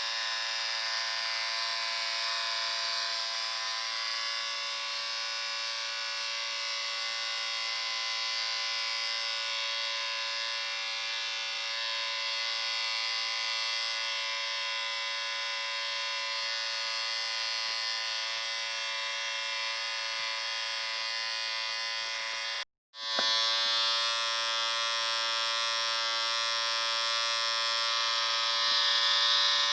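Electric shaver running with a steady buzz. About three-quarters of the way through it cuts out for a split second, then resumes slightly louder.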